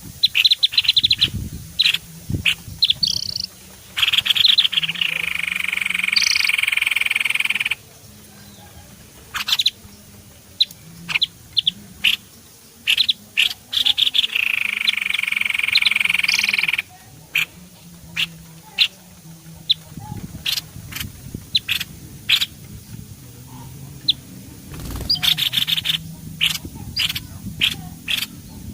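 Bird-trapping lure recording: a mix of sharp, rapid bird chirps and calls. Twice a harsh buzzing call is held for about three seconds, once early and once around the middle.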